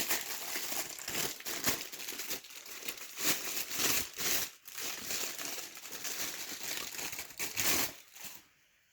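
Plastic packaging crinkling and rustling in the hands as gear is unwrapped, with irregular crackles that stop shortly before the end.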